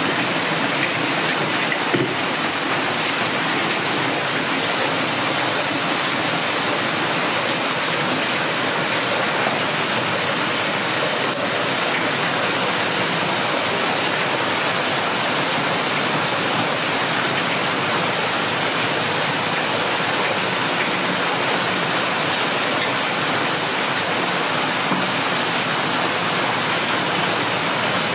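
Steady rush of water running through a fish grading and counting line, a roller grader feeding an automatic fish counter as African catfish pass through. A short knock about two seconds in.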